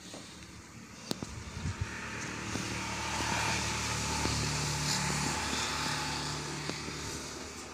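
A passing motor vehicle: a steady rumble that swells over the first few seconds and then slowly fades.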